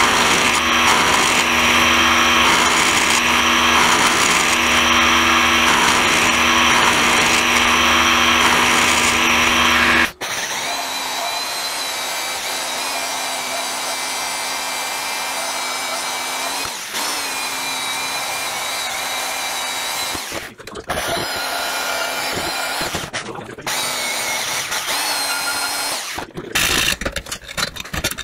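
A milling machine's cutter running steadily through a steel part for about ten seconds. Then a bandsaw blade cutting steadily through a steel piece held in a vise, quieter, with short choppy bits of sawing near the end.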